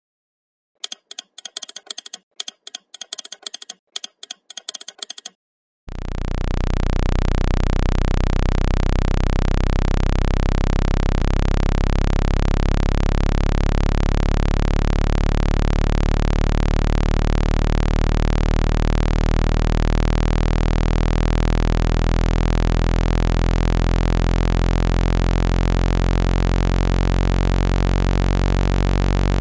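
Speaker-cleaner tone: a loud, steady, low buzzing tone full of overtones, played to shake water and dust out of a phone speaker. It starts about six seconds in. Before it comes a few seconds of rapid, short, high-pitched clicks.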